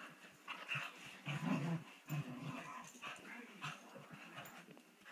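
Two Bedlington terriers play-fighting: growls and grunts come in short bursts, the loudest about a second and a half in, with small clicks between them.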